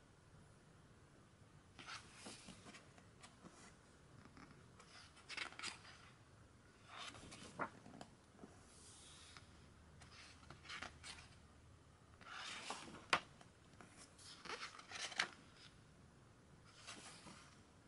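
Pages of a hardcover photobook being turned by hand: a faint swish and rustle of paper every few seconds, some turns ending in a sharp flick.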